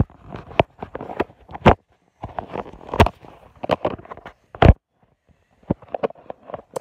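Handling noise from a phone held in the hand and repositioned: a string of sharp knocks and taps with rustling against the microphone, with brief pauses around two and five seconds in.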